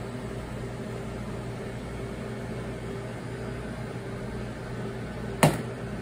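Steady low mechanical hum with faint steady tones, like running café equipment, and one sharp knock about five and a half seconds in.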